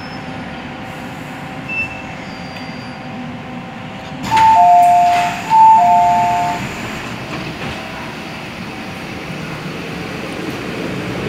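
Metro train cabin rumble as the MTR M-Train comes to a stop at the platform. About four seconds in, the doors open with a sudden rush of noise and a two-tone door chime sounds twice.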